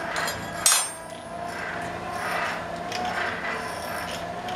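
A single sharp clank of an iron forge poker being laid down on the coal forge, ringing briefly, about a second in, over a steady wavering hum.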